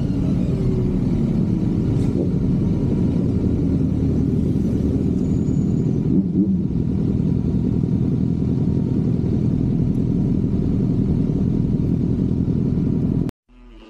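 Kawasaki Z900 SE's inline-four engine running steadily while riding, under an even rush of road noise. It cuts off abruptly near the end.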